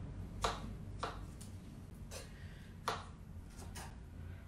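Kitchen knives slicing strawberries on a wooden cutting board, the blades knocking sharply on the board at an uneven pace, about one a second, with two close together near the end.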